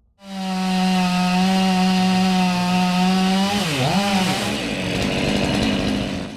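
Chainsaw running at full throttle with a steady high pitch, which drops sharply twice a few seconds in as the chain bites into wood, then keeps cutting under load.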